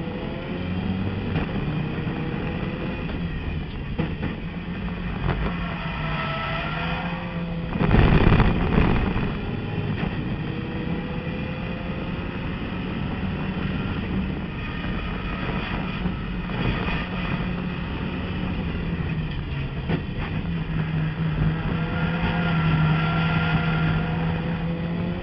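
Turbocharged race car engine heard from inside the cabin under hard acceleration, its pitch rising through the gears and falling as it lifts and shifts down for a corner. A loud rumbling burst about a second long comes about eight seconds in.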